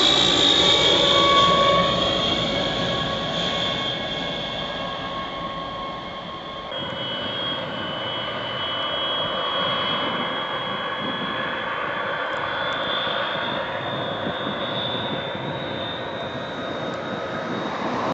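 The Rolls-Royce Dart turboprop engines of a Hawker Siddeley Andover C1 give a high whine that falls in pitch as the aircraft passes low overhead, loudest in the first two seconds. About seven seconds in the sound changes abruptly to a steadier, quieter turbine whine as the aircraft moves along the ground.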